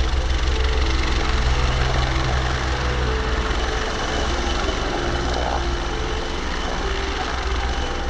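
Bell 430 twin-turbine helicopter hovering low, its four-blade main rotor thudding over the steady whine and rush of the turbines, growing gradually a little quieter.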